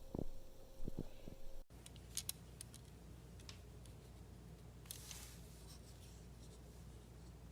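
A few faint clicks and light handling noises over low room tone, with a steady faint hum cutting off abruptly early on.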